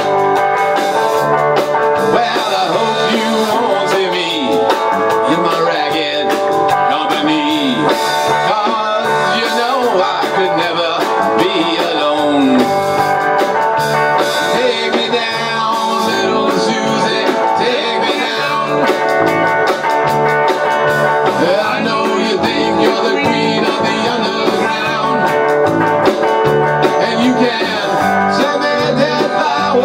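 Live rock band playing: electric guitars and a drum kit, loud and steady throughout.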